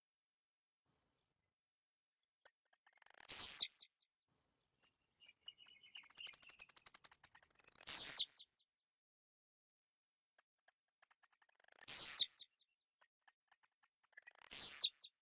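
Blue-black grassquit (tiziu) singing: four short phrases, each a quick run of high ticks ending in a sharp, falling, buzzy note.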